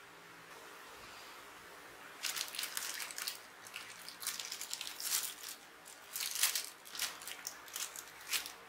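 Thin clear plastic bag crinkling and crackling in the hands as it is opened and a silicone wristband is pulled out. The crackles come in an irregular run starting about two seconds in.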